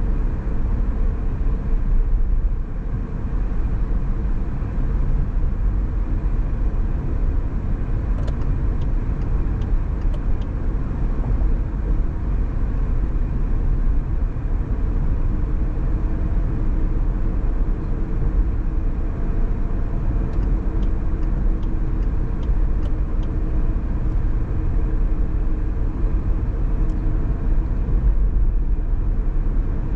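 A car on the move: steady road and engine noise, with a deep low rumble throughout. Two short runs of faint ticks come about a third of the way in and again past the middle.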